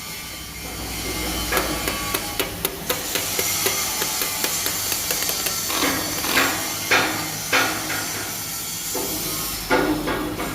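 Arc welding on a 3G (vertical) plate: a steady hiss with fine crackling, broken by several sharp metal knocks, a few close together past the middle and another near the end.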